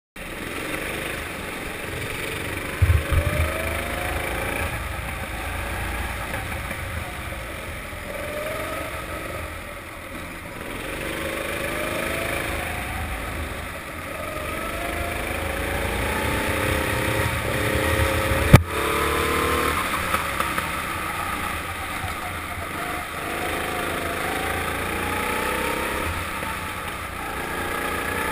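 Four-stroke kart engine heard onboard, revving up and dropping back again and again through a lap, with a rumble underneath. A few knocks come about three seconds in, and one sharp knock about eighteen seconds in is the loudest sound.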